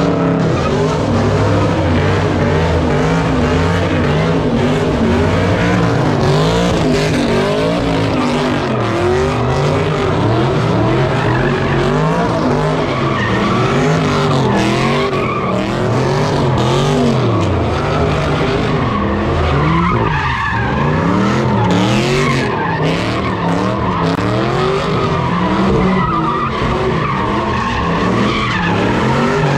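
Sedans doing donuts: the engines rev up and down over and over while the rear tyres spin and skid on the pavement, squealing.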